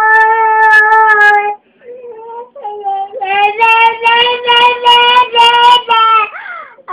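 A small boy singing loudly in long held notes. He breaks off about a second and a half in, sings more quietly for a moment, then holds another long loud note from about three seconds in and ends with a quick swoop in pitch.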